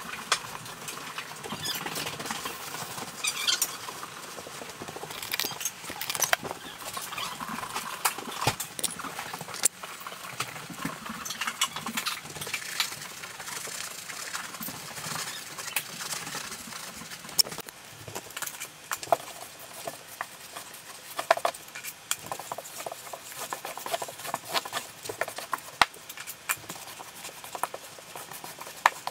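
Quick, busy scraping, squeaking and clicking of a grout sponge and rubber grout float wiping and working over marble tile.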